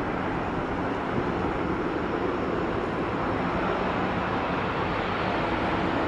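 Jet engines of a Boeing 787 Dreamliner on short final approach: a steady engine noise with a faint low hum running through it.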